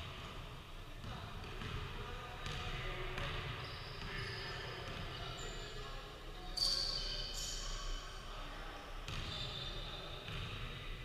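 Basketball game on a hardwood gym court: a ball bouncing and sneakers squeaking, loudest a little past halfway, with players' voices in the background, all echoing in the large hall.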